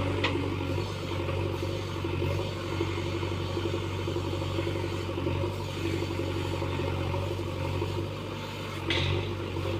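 A JCB backhoe loader's diesel engine runs steadily with a constant low hum. A short hiss comes about nine seconds in.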